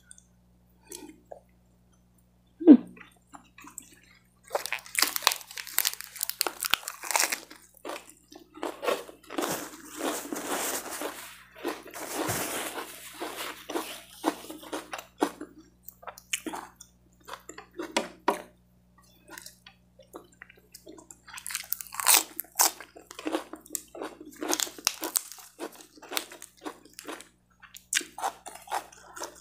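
A person biting and chewing crisp raw lettuce leaves close to a clip-on microphone: crunching in bursts of bites and chews, with quieter stretches between. There is a single sharp click about three seconds in.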